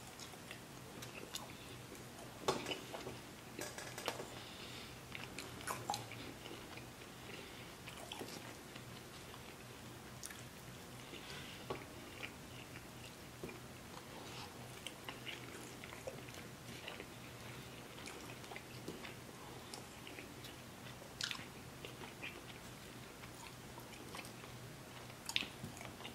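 A man eating barbecue-sauced baby back ribs: biting meat off the bone and chewing, with scattered sharp wet clicks, a few louder ones near the start and near the end.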